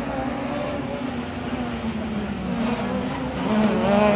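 Rally car engine revving hard as the car comes round the oval toward the listener. Its note climbs in pitch and grows louder in the last second, as the car passes close by.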